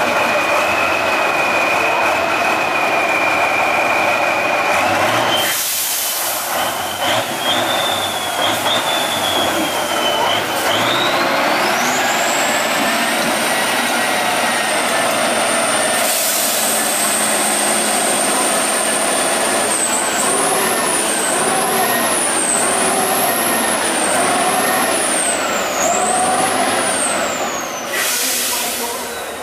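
Tatra 813 8x8 trial truck's engine pulling hard through mud, with a high whistle that climbs and, near the end, rises and falls about once a second as the revs go up and down. Three short sharp bursts of air hiss cut in.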